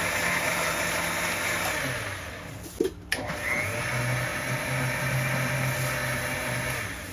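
A small motor whirring loudly, easing off about two seconds in, with a sharp click near three seconds. A lower steady hum follows and stops just before the end.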